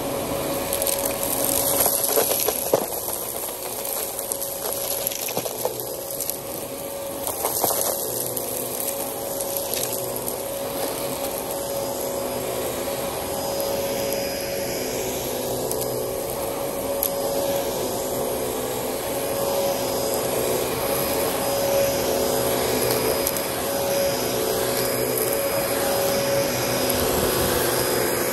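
Dyson DC14 upright vacuum cleaner running steadily over concrete, a steady motor whine over the rush of air, picking up fine dirt and fluff. Clicks and crackles of grit being sucked through come in spells about two and seven seconds in.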